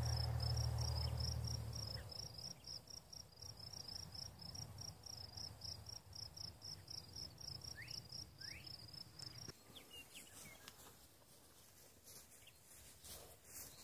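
Cricket chirping steadily, about four chirps a second, that stops about nine and a half seconds in. A low rumble fills the first two seconds, and a couple of short rising bird calls come near the middle.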